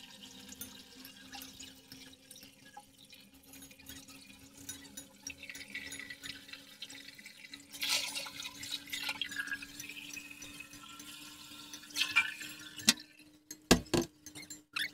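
Hot oil sizzling and crackling around a dough bowl deep-frying slowly in a pan, with louder bursts of sizzle about eight and twelve seconds in as oil is spooned over it. A steady low hum runs underneath, and there are a few sharp knocks near the end.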